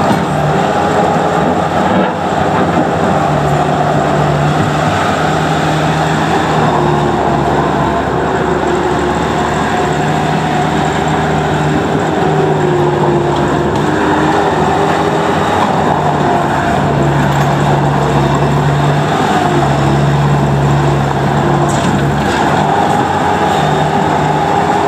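2004 Bobcat S185 skid steer loader running, its Kubota diesel engine droning steadily, with the engine note shifting a little now and then.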